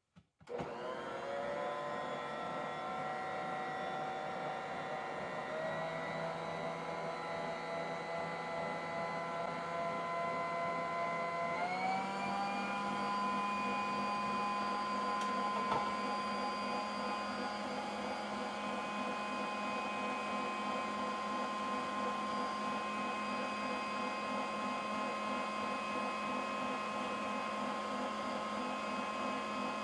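Bosch kitchen mixer's motor running with the dough hook whipping heavy cream. It starts about half a second in and winds up. Its whine steps up in pitch twice, around five and twelve seconds in, then runs steadily.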